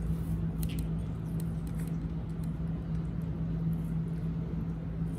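Pets eating from plates, making faint scattered clicks and crunches, over a steady low hum.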